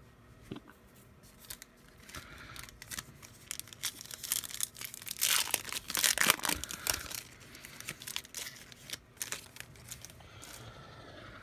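A wrapper on a pack of baseball cards being torn open and crinkled: scattered crackles that build to the loudest tearing about five to seven seconds in, then thin out.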